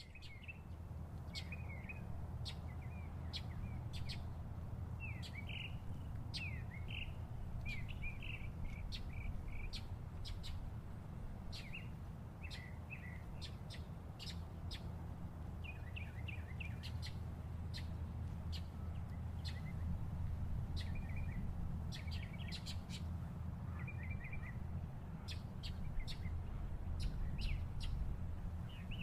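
Small birds chirping and singing, many short twittering calls repeating throughout, over a steady low rumble.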